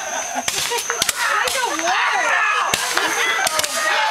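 Handheld roman candles firing, a string of sharp pops as the burning balls shoot out. Voices call out between the shots.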